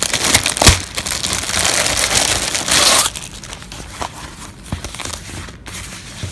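Clear plastic poly bag crinkling loudly as it is handled and opened for about three seconds, then quieter rustling of fabric webbing with a few light knocks.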